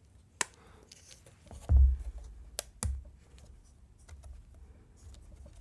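A few sharp small clicks of a plastic plate-mount keyboard stabilizer being handled and snapped into an aluminum keyboard plate, with one dull low thump from the plate being set down on the desk, about two seconds in.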